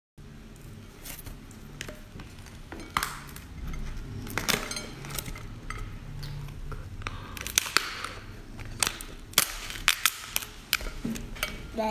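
Shell of a cooked lobster being cracked and pulled apart by hand: a run of sharp, irregular cracks and snaps, coming thicker in the second half.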